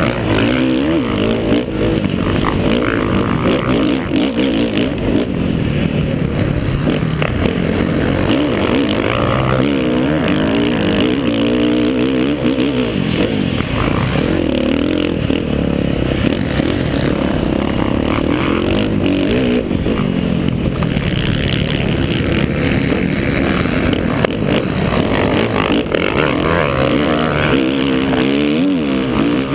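A 50cc youth motocross bike's engine, heard close from the rider's helmet, revving up and down continuously with the throttle as it is raced over a dirt track.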